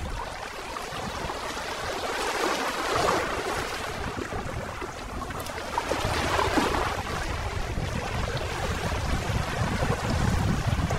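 Small sea waves washing and splashing against shoreline boulders, swelling twice, with wind rumbling on the microphone.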